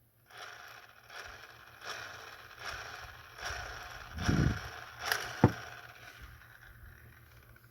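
Plastic toy playset pieces being handled and fitted together, scraping and rattling, with a dull thump about four seconds in and a sharp click about a second later.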